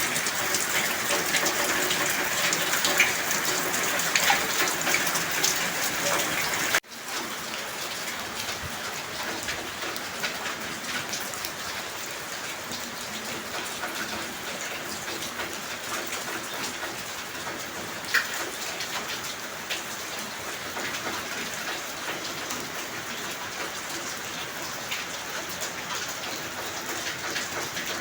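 Heavy rain pouring down steadily, with scattered drop ticks; an abrupt cut about seven seconds in drops it to a slightly quieter steady downpour.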